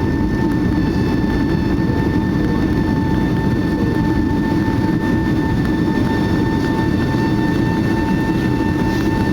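Cabin noise inside a Boeing 757 airliner: a steady, loud rumble of engines and airflow with a constant whine on top.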